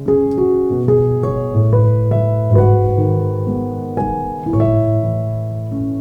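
Background music: slow solo piano, single notes and chords struck about every half second and left to ring.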